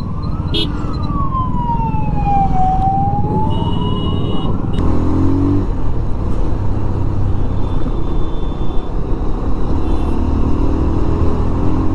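An emergency-vehicle siren wails in one slow sweep, down and back up, and cuts off suddenly about five seconds in. After that comes the running motorcycle engine and wind rush as the bike picks up speed.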